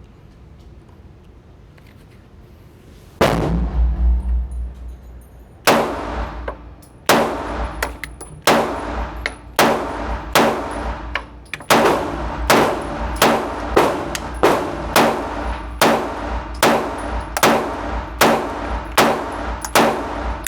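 Gunshots: one shot about three seconds in, then after a short pause a steady string of about twenty single shots, roughly one and a half a second, each with a ringing echo tail. The shots come one trigger pull at a time, not as a fully automatic burst.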